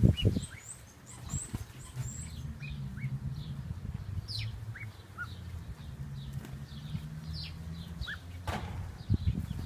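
Small birds chirping, many short high chirps scattered throughout, over a low steady hum. There are brief low rumbling thumps right at the start and near the end.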